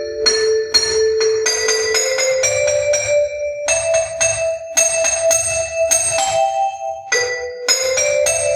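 Electronic keyboard voice of bell-like mallet tones, a run of single struck notes, about one or two a second, each ringing out and fading before the next.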